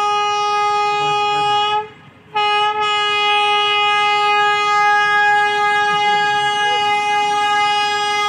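PHA-20 diesel-electric locomotive's horn sounding a long, steady single-note blast. It breaks off briefly about two seconds in, then is held again.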